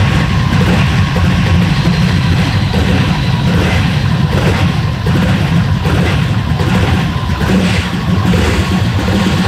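Twin-turbocharged jet boat engine running steadily under way, its deep exhaust drone carrying a steady high whine.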